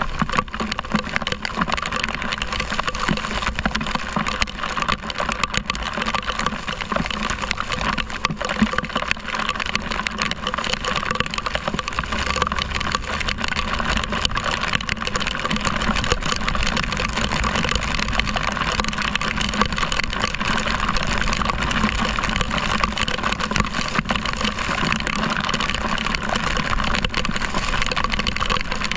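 A motor scooter riding at speed through heavy rain: a steady hiss of rain and road spray over a low rumble from the engine and the wind. Many small ticks, likely raindrops striking the camera, run through it.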